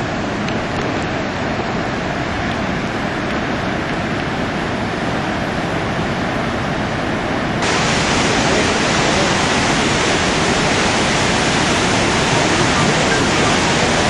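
Iguazú Falls at the Devil's Throat: a steady, loud rush of falling water. About halfway through, it turns abruptly louder and hissier.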